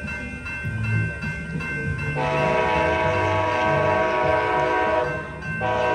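An approaching train sounds its horn: one long blast starting about two seconds in, then a second blast beginning just before the end. Under it, a grade-crossing warning bell rings in a steady rapid pulse, with the low rumble of the locomotive.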